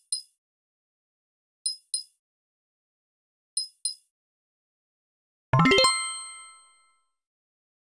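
Editing sound effects on a quiz slide: a quick double click as each answer word appears, about every two seconds, then a bright bell-like ding that rings out for about a second and a half, starting five and a half seconds in.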